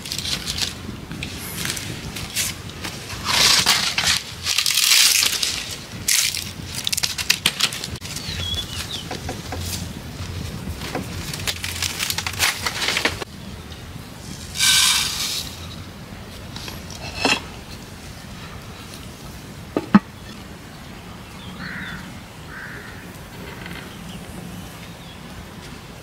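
Dry sticks and straw rustling, crunching and knocking as they are handled and laid on a small wood campfire, with scattered sharp clicks. Two single sharp knocks come later, and the last part is a quieter steady outdoor background.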